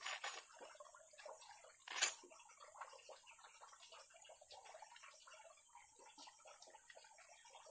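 Fresh cassava leaves torn and crumpled by hand, a crackling rustle of leaves, with two sharper tearing sounds at the start and about two seconds in.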